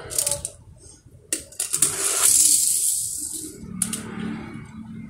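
Small die-cast toy car clattering down a board ramp and rolling over rough concrete: a few sharp clicks, then a rattling roll of about a second and a half.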